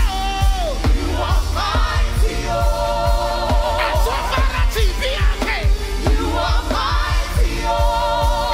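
Live worship music: a band playing over a steady drum beat while a singer holds long, wavering notes.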